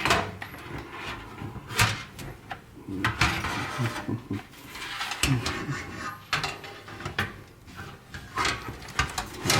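Irregular clicks, knocks and scrapes of computer hardware being handled and worked into place while a PC is assembled.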